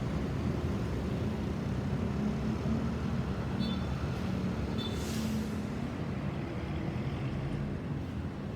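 Road traffic: vehicle engines running with a steady rumble. Two faint short high beeps come between three and five seconds in, and a short hiss about five seconds in.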